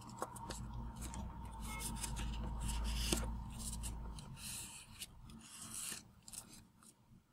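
Fingers rubbing and pressing down on folded origami paper against a table, creasing the folds: a faint scratchy rustle with small crinkles and taps, under a low rumble for the first four seconds, fading out about six seconds in.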